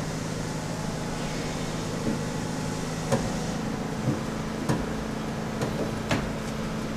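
A steady low machine hum with a handful of short, sharp clicks or taps scattered through the middle, about one a second.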